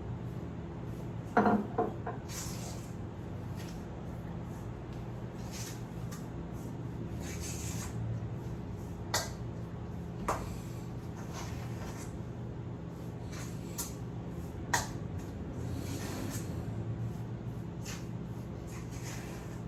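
Kitchen handling noises: a few sharp knocks and clatters of utensils or dishes, the loudest a double knock about a second and a half in, with soft rubbing and rustling between them over a steady low hum.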